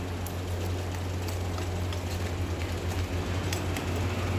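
A steady low hum, with scattered light clicks of small metal parts, bolts and bracket, being handled.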